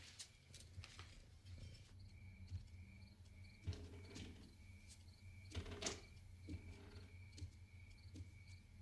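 Hushed night-time house ambience with crickets chirping steadily and faintly, and a few soft footsteps on a staircase, the loudest about six seconds in.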